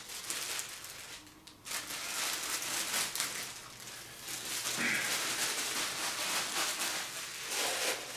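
Statue packaging being handled and pulled apart: a dense run of crinkling and rustling, with a short lull just over a second in.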